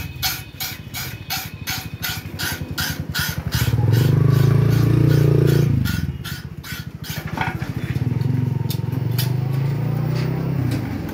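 Hand file rasping along a steel knife blade in quick strokes, about four a second, stopping about seven seconds in. An engine hums underneath, loudest around four to six seconds in.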